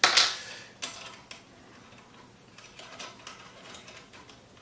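Small steel parts of an M1 Garand trigger group clicking and clinking against the trigger housing as they are fitted by hand: one sharp clink at the start, the loudest, then scattered lighter clicks.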